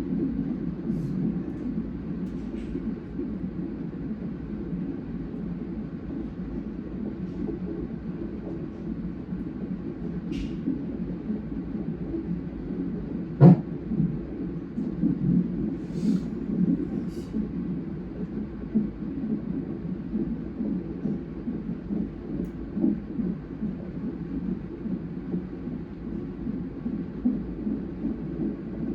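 Fetal heart monitor's Doppler speaker during a twin non-stress test: a fast, rhythmic whooshing heartbeat. One sharp knock comes about halfway through.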